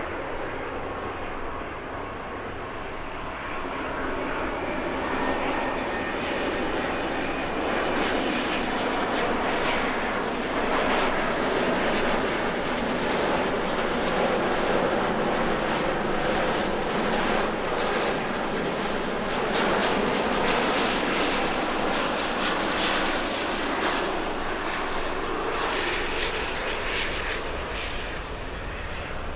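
Airbus A350-900 airliner on final approach with its landing gear down, its Rolls-Royce Trent XWB turbofans giving a steady jet rumble. The rumble swells as the plane comes closer, from a few seconds in, and eases a little near the end.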